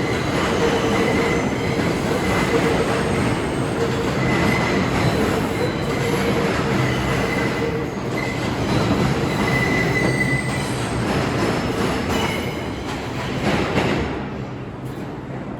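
R142 subway train running on the rails with its wheels squealing: a steady screech over the rumble of the cars, easing off about 14 seconds in.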